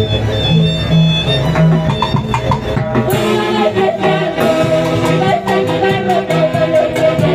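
Live band music with saxophones over drums and timbales, purely instrumental with no singing. The music changes abruptly about three seconds in.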